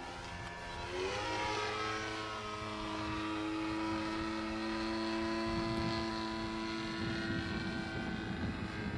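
Piston engine and propeller of a Zero fighter flying overhead, a steady engine drone whose pitch rises about a second in and then holds.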